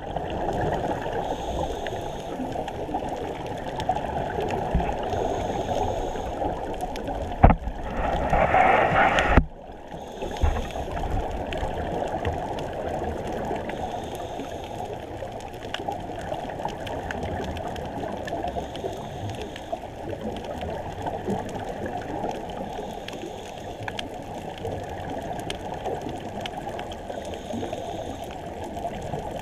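Muffled underwater sound of a scuba diver's regulator breathing and exhaust bubbles, heard through the camera's waterproof housing, with a faint hiss returning every four to five seconds. A sharp click about seven seconds in is followed by a louder gurgling rush that lasts about two seconds.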